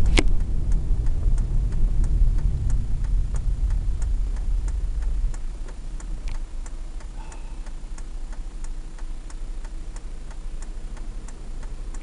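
A car's turn-signal indicator clicks steadily inside the cabin, about three clicks a second. Under it is the low rumble of the vehicle, which drops off about five seconds in. There is a sharp click right at the start.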